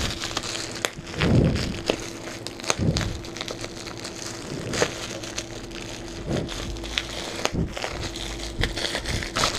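Bubble wrap being squeezed and popped by hand: irregular sharp pops and crackles with crinkling plastic, a few heavier crunches among them.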